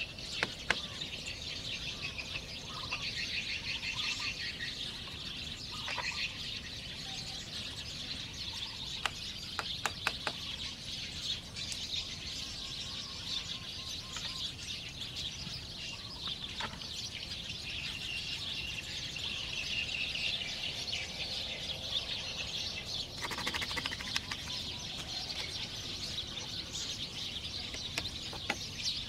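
Forest birds chirping and calling steadily, with a few sharp knocks of bamboo being worked, a cluster of them about a third of the way in.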